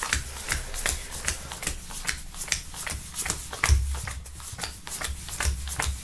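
A stack of paper stickers being counted out one at a time onto a wooden tabletop: a quick run of light flicks and taps, several a second, with soft thumps as each sticker lands.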